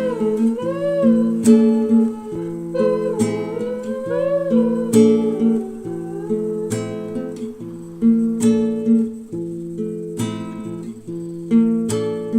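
Background music: acoustic guitar plucking and strumming slow chords, with a gliding melody line over it for the first few seconds.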